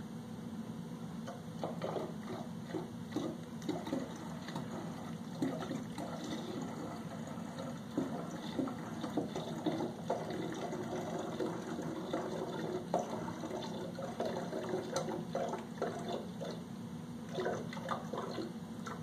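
Spring water poured from a plastic pitcher into a one-gallon glass jug of dissolved honey, topping up the mead must; the pour splashes irregularly, starting about a second and a half in.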